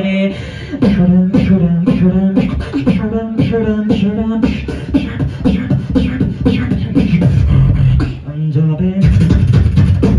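Beatboxer performing into a handheld microphone through a club PA: a steady beat of vocal drum hits layered with a pitched vocal bass line that steps between notes, growing louder and denser near the end.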